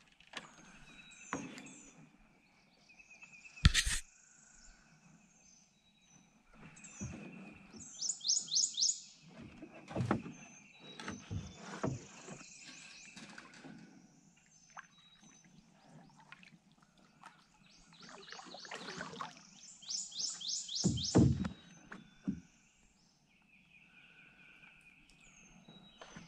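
Birds calling, with rapid runs of high chirps about eight and twenty seconds in. A single sharp knock about four seconds in is the loudest sound, and dull thumps and bumps come and go through the rest.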